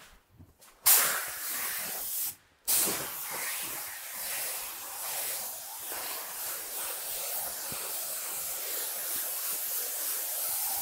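Gravity-feed paint spray gun hissing as compressed air atomises paint onto a car door: a short burst about a second in, a brief break, then a steady spray.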